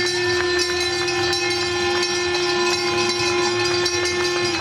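Horns held in long, steady overlapping notes at two or three different pitches, the lowest and loudest stopping just before the end, over a background of many sharp clicks and rattles.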